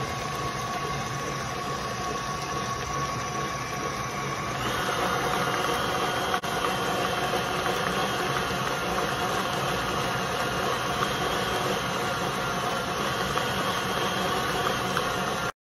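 KitchenAid stand mixer running steadily, its wire whisk beating heavy cream on the way to butter: a continuous motor hum with a few steady tones. The sound grows a little brighter about five seconds in, and it cuts off abruptly just before the end.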